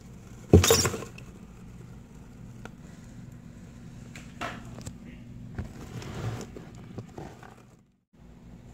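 A ball python strikes a live mouse: one sudden loud thump about half a second in, then softer clicks and rustling in coconut-husk bedding as the snake coils and constricts, over a steady low hum.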